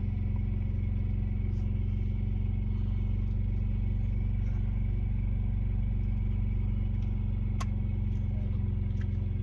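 Truck engine running steadily, heard from inside the cab: an even low drone. A sharp click sounds about two-thirds of the way through, and a fainter one near the end.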